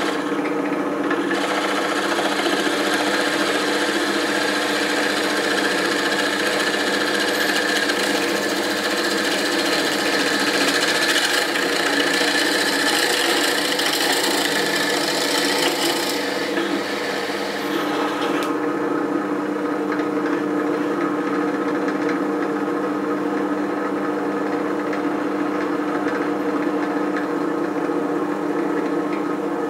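SK11 SDP-300V benchtop drill press running steadily, its twist bit boring into a wooden board with a rasping cutting sound. About two-thirds of the way through, the cutting noise stops and the motor runs on alone.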